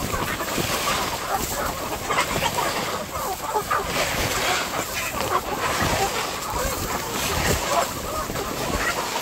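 A crowded flock of chickens clucking, with many short overlapping calls over a steady rustling hiss of birds shuffling about.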